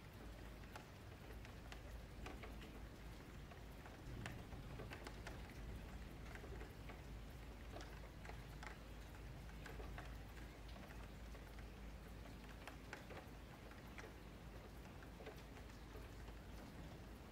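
Faint, irregular clicks of a computer mouse and keyboard over a low steady hum.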